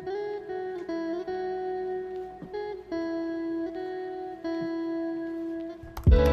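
Background music: a plucked guitar melody of held notes with small slides in pitch. Near the end, louder music with a deep bass comes in.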